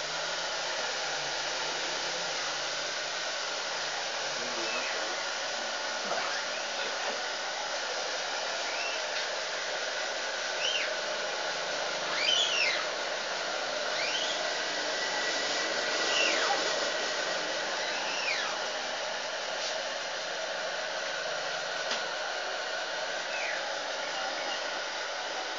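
A handheld hot-air dryer blowing steadily, of the kind used to dry screen-printing ink between prints. Short, high chirps rise and fall over it now and then.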